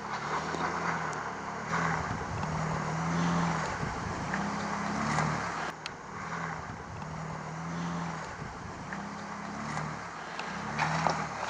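Vehicle engine running, its low note stepping up and down every second or so, with scattered short knocks and rattles over it.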